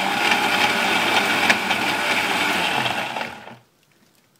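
Electric mixer grinder (mixie) running, coarsely grinding roasted peanuts, chillies and the other chutney ingredients with a dense rattling whirr. It is switched off about three seconds in and winds down to silence within half a second.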